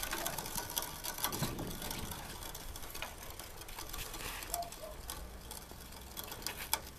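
Aircraft trailer being pushed by hand across a concrete driveway: irregular clicking and rattling from its wheels and frame.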